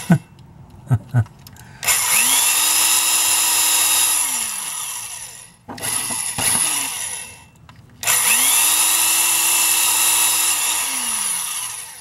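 An old metal-bodied electric drill run twice into the underside of a diecast toy car. Each run spins up with a rising whine, runs steadily for about three seconds, then winds down. A few light clicks come before the first run.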